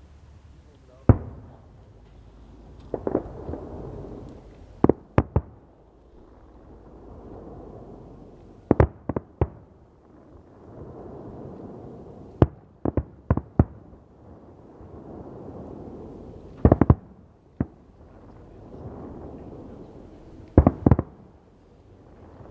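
Fireworks going off: sharp bangs at irregular intervals, some single and some in quick clusters of two to four, over a fainter steady background noise.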